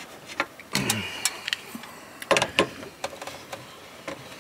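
Irregular metallic clicks and knocks of a setscrew and Allen key being worked into the neutral lug of a metal meter base, with a sharper pair of knocks about halfway through.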